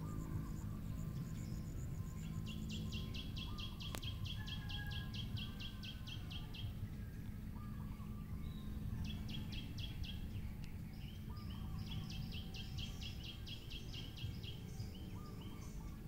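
Outdoor ambience of birds calling: three runs of rapid, evenly spaced high chirps, about four or five a second, each lasting a few seconds, with fainter short whistles in between, over a steady low background rumble.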